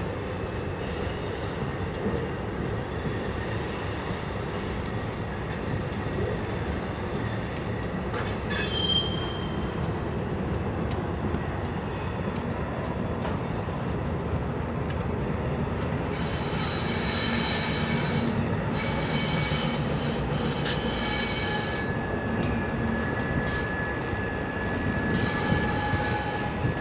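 Freight trains passing: a steady rumble of diesel locomotives and rolling cars. About sixteen seconds in, high thin wheel squeal sets in and holds.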